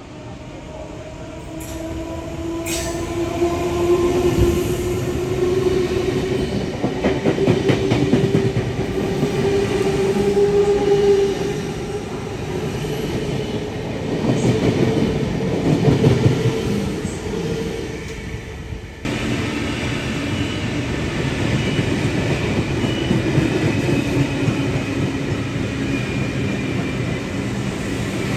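Train running on the rails, with a slowly rising squeal over the first ten seconds or so. The sound changes abruptly about two-thirds of the way through.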